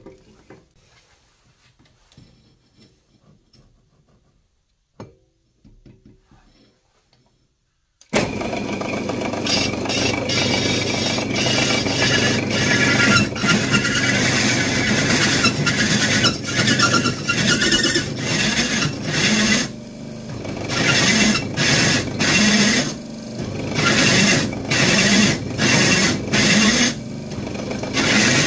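A pillar drill starts up about eight seconds in and runs an annular cutter into steel box section: a steady motor hum under a loud metal-cutting noise that rises and falls in pulses in the last third. Before that, a few faint clicks of hands working the drill chuck.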